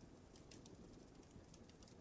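Faint wood fire crackling: small scattered pops and ticks over a soft low rumble.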